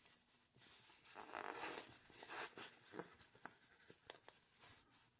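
Faint handling noise as a Seiko 5 SRPD59's stainless steel bracelet is worked off its cushioned pillow: soft rustling of the fabric in the first half, then a few light clicks of the bracelet links.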